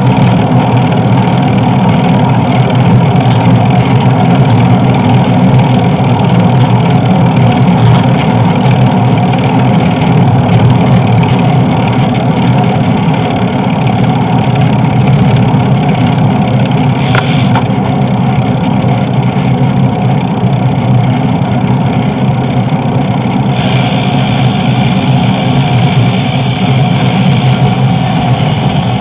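Steady, loud road and traffic noise heard from a moving bicycle on a busy city avenue, with a brief click about 17 seconds in and more hiss from about 24 seconds.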